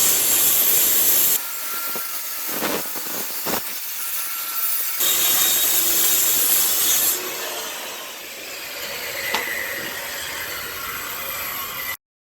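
Harbor Freight handheld electric planer running and cutting along a pine slab. It is loudest in two heavier cutting passes, one at the start and one in the middle, and runs lighter in between. The sound cuts off abruptly near the end.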